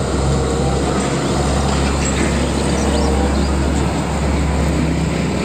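Fuel tanker truck driving by on a road: a steady low diesel engine hum with road and tyre noise.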